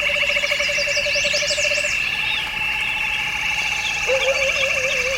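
A chorus of frogs calling in rapid pulsed trills, with insects chirping steadily in a higher, continuous drone and birds chirping over the top. One frog's trill breaks into a wavering call about four seconds in.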